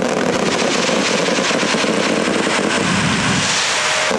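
Fireworks crackling overhead: crackling-star shells bursting in the sky, countless tiny pops merging into a dense, continuous crackle.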